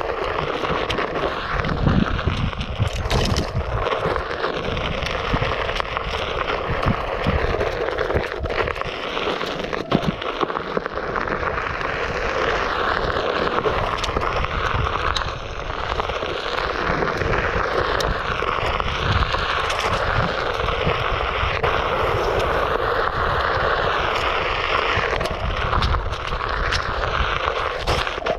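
Onewheel Pint electric board rolling over a dirt trail: steady tyre and motor rushing noise with scattered ticks from the ground, and wind buffeting the microphone.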